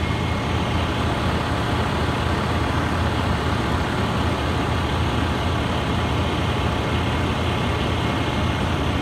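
Steady low rumble of an idling truck engine.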